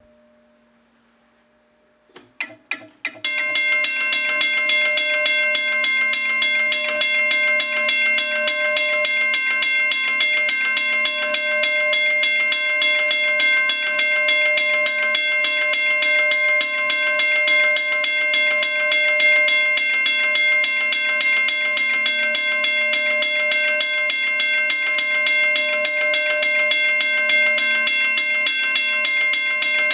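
Griswold railroad crossing bell ringing: a few separate strikes about two seconds in, then a fast, even run of hammer blows on the gong with a steady metallic ring.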